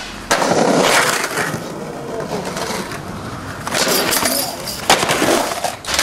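Skateboard wheels rolling over street pavement, then a loud clatter of the board hitting the ground about four seconds in, followed by a couple of sharp wooden clacks.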